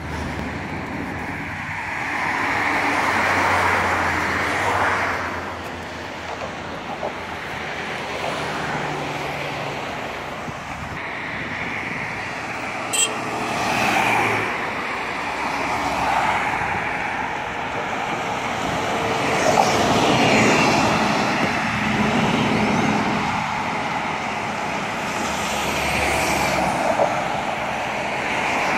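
Traffic noise heard from a moving vehicle: a steady rush of tyre and wind noise, with other vehicles swelling louder as they pass several times, and a brief click about halfway through.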